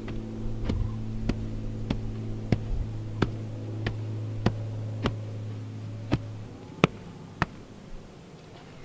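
Homemade wooden hand tamper, a block of wood on a sapling handle, thumping down on damp red clay in a footing trench. About a dozen evenly paced strikes, a little more than one a second, compact the soil. A steady low hum underneath stops about two-thirds of the way through.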